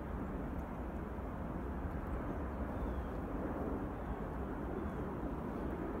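Steady low rumble of outdoor background noise with no distinct events.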